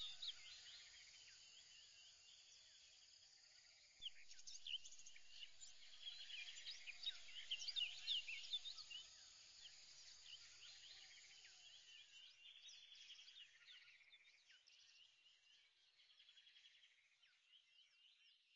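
Faint birdsong: many quick chirps and whistles with some buzzy trills, growing fainter in the second half and cutting off suddenly at the end.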